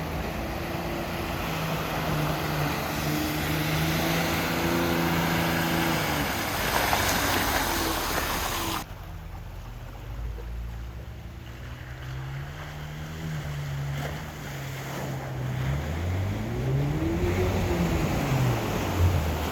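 Off-road vehicle's engine running and revving under load, with a steady wash of water or mud splashing over it in the first half. About nine seconds in the sound cuts suddenly to a quieter engine, which revs up and back down near the end.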